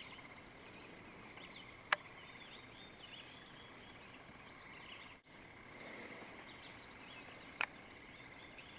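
Songbirds chirping over a steady high-pitched trill, with two sharp clicks, about two seconds in and again near the end.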